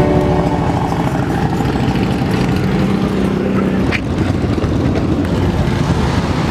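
Motorcycle engines rumbling in the street, with a steady held engine tone for the first few seconds. A brief sharp click comes about four seconds in, and the rumble goes on after it.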